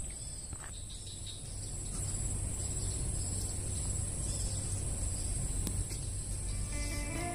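Insect chorus: a steady, high-pitched drone, with a low rumble of wind on the microphone underneath. Soft plucked-string music comes in near the end.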